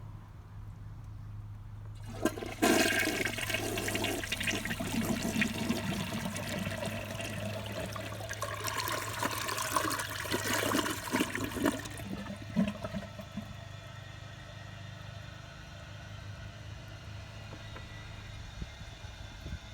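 A 2004 American Standard Cadet toilet flushing. About two seconds in, a sudden loud rush of water starts and runs for about ten seconds, then drops to a quieter steady water sound as the tank refills. A low steady hum runs underneath throughout.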